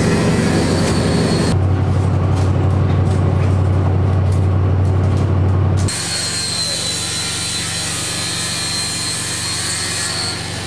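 Low, steady engine drone of a fishing boat. From about six seconds in, an angle grinder cuts steel, a steady high whine over a hiss.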